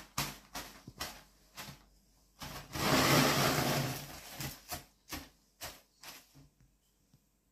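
Biscuits being crushed inside a plastic bag by hand and with a wooden rolling pin: short crunches and crinkles, with a longer, louder rolling pass about three seconds in.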